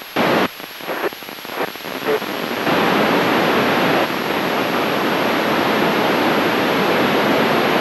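Handheld FM radio's speaker hissing with static as the ISS repeater's signal fades out with the station low on the horizon: broken bursts of hiss at first, then a steady loud hiss from about three seconds in.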